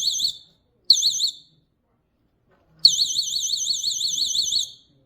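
GE wireless window/door alarm sounding its alarm: a high electronic tone warbling rapidly, about eight times a second. It is set off as the sensor and its magnet are slid apart. It sounds in bursts: a brief one at the start, another about a second in, and a longer one of nearly two seconds from about three seconds in.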